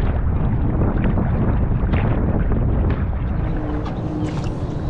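Wind buffeting the microphone while a kayak is paddled on the water, with scattered small splashes and knocks. A faint steady hum comes in about three and a half seconds in.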